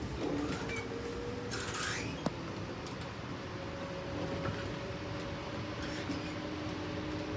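Steady rumble of a passenger train car under way, with faint held humming tones, a short hiss about a second and a half in and a single sharp click just after it.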